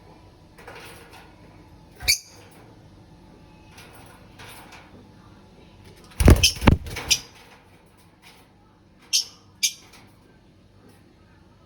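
Knocks and thumps: a sharp click about two seconds in and a cluster of heavy thumps around the middle, then two short high chirps from caged pet birds.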